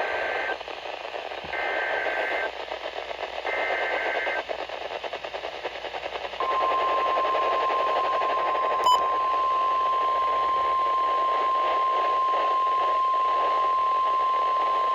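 NOAA Weather Radio Emergency Alert System alert over radio hiss. It opens with three short buzzy bursts of SAME digital header data. About six seconds in, the single steady warning alarm tone begins and holds.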